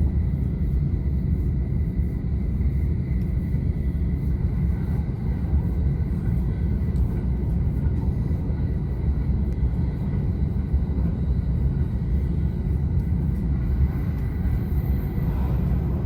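Tokaido Line local train running at speed, heard from inside the carriage: a steady low rumble of wheels on the rails, with a faint steady high tone above it.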